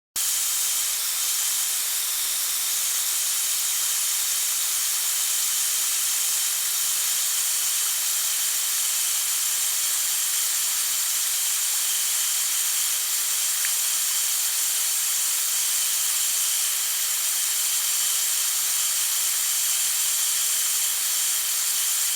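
A water sound: a steady, even hiss, mostly high-pitched, that starts abruptly and holds unchanged.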